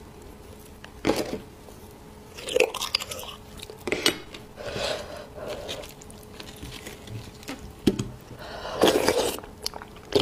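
Eating roasted beef bone marrow: short bursts of mouth and handling noise every second or so, with a quieter gap in the middle.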